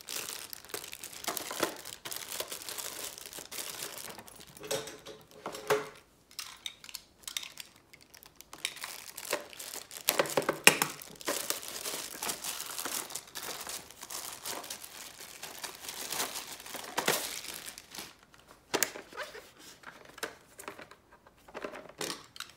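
Plastic packaging crinkling and rustling in irregular bursts, with some tearing, as bagged accessories are unwrapped by hand.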